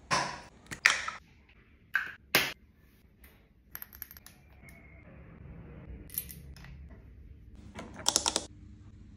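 Skincare bottles and jars being picked up from and set back down on a stone tray: sharp clinks and knocks, several in the first couple of seconds and a quick run of clicks near the end.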